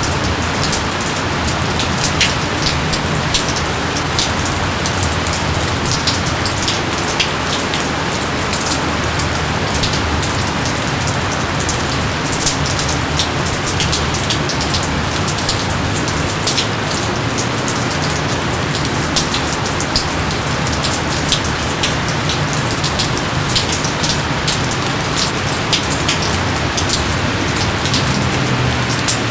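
Steady heavy rain, with many sharp individual drops pattering on surfaces over a constant wash of rainfall.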